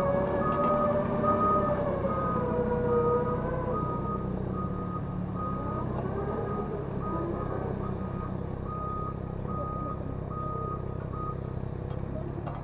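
Excavator travel alarm beeping at an even rate over the steady low hum of diesel engines; the beeping stops about eleven seconds in. In the first few seconds a wavering whine rises and falls over it.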